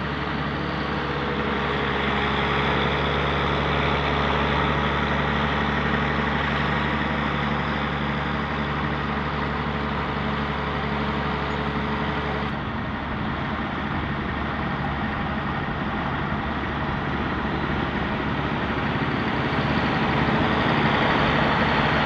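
Diesel engine of a large truck-mounted rotary snow blower running steadily, with a wide hiss over its low hum. The engine's tone shifts abruptly about twelve and a half seconds in.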